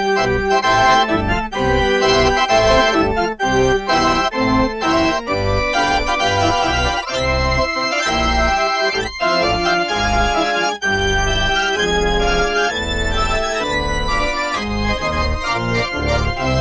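Instrumental intro music with a steady beat.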